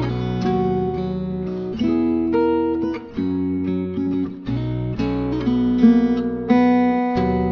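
Background music: an acoustic guitar strumming a sequence of chords, changing roughly every second.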